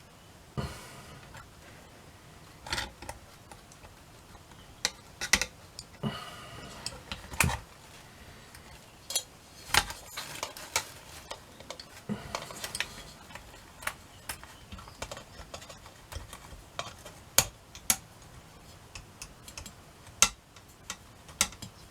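Small metal clock parts clicking and tapping as they are handled and fitted: irregular sharp clicks throughout, a few with a brief metallic ring.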